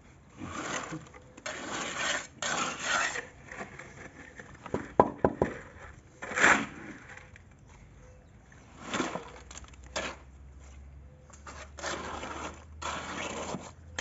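Trowel scraping and spreading wet concrete inside a wooden form, in a run of short separate scrapes as fresh concrete is tipped in and worked over a refrigerator shelf grid. A few sharp knocks with a brief ring come about five seconds in.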